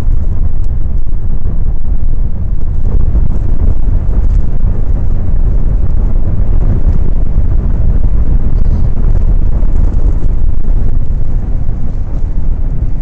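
Wind from a paraglider's flight buffeting the camera microphone: a loud, steady low rumble.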